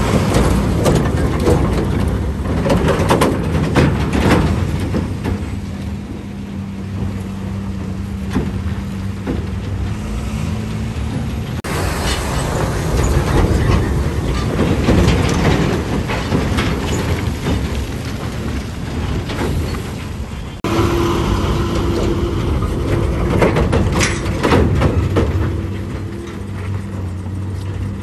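Diesel engines of heavy multi-axle tipper trucks running under load as they crawl through deep mud ruts, with scattered sharp cracks and clicks over the engine noise. The sound changes abruptly twice, about a third of the way in and again about three quarters of the way in, as one truck gives way to another.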